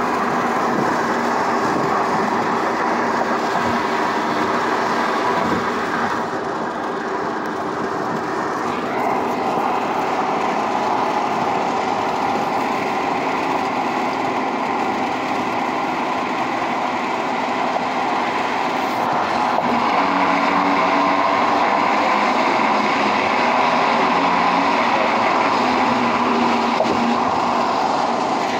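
Steady road noise inside a moving car's cabin at freeway speed: tyres rolling and wind rushing past the windows.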